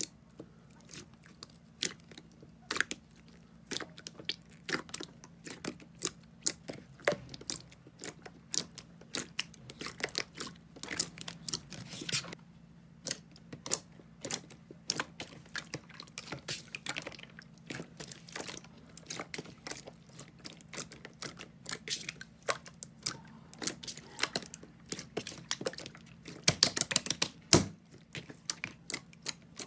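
Hands squishing and kneading a large mass of thick slime, giving a steady stream of irregular wet clicks and pops, with a louder flurry of pops near the end.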